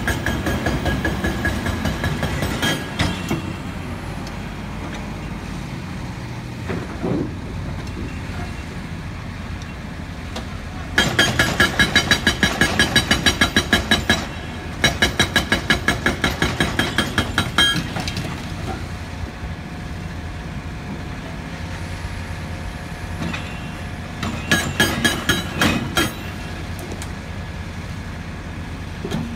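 A hydraulic breaker on a Cat excavator hammering rock, in runs of rapid blows at several a second: one at the start, two in the middle with a short break between them, and another near the end. Under it the diesel engines run steadily.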